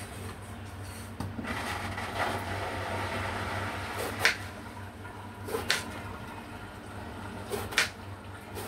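Kitchen knife cutting through a long eggplant onto a plastic cutting board: a few sharp knocks as the blade goes through and hits the board, over a steady low hum.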